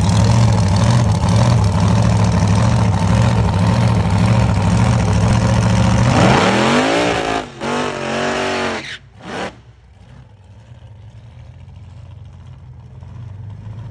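The supercharged alcohol-burning engine of a Fiat altered drag car idles loud and steady at the starting line. About six seconds in it launches at full throttle: the pitch climbs, dips briefly, then climbs again. A few seconds later it cuts off as the car goes down the track, and the sound falls away.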